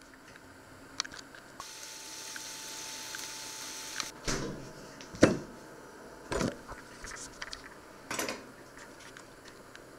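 Kitchen handling noises: a steady hiss for a couple of seconds, then four separate knocks and clatters as things are handled on the worktop and stove. The loudest knock comes about halfway through.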